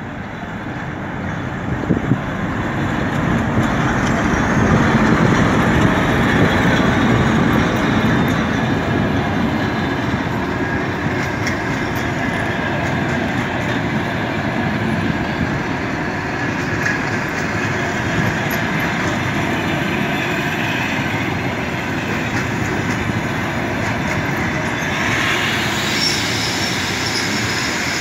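Passenger train rolling into the station, the noise of its wheels on the rails swelling over the first few seconds and then holding steady. A higher-pitched sound joins near the end.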